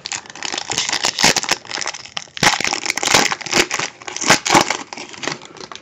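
Foil wrapper of a 2014 Bowman Chrome trading card pack crinkling and tearing as it is handled, a dense run of sharp crackles that swells and fades several times.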